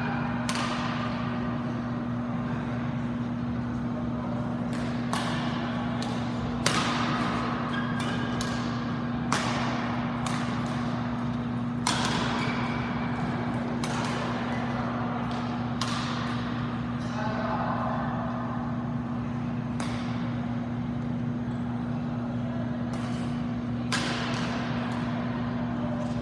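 Badminton rackets striking a shuttlecock during rallies: sharp cracks every second or two, ringing in a large hall, the loudest about a third of the way in. A steady low hum runs underneath.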